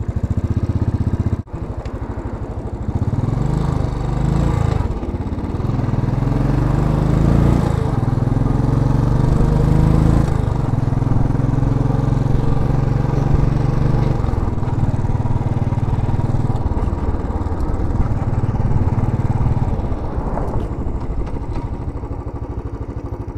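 A 2010 Royal Enfield Classic C5's single-cylinder engine running under way, its revs climbing and dropping several times, and easing off near the end.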